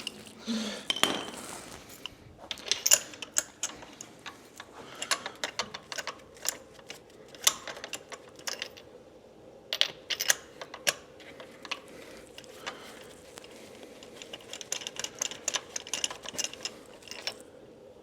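A hand ratchet and metal tools clicking and tapping in short irregular runs, with a quicker run of ratchet clicks near the end.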